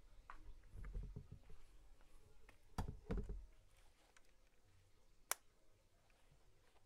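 Faint handling noise of soft thumps and knocks, then one sharp click a little past five seconds in as a power strip's rocker switch is flipped on.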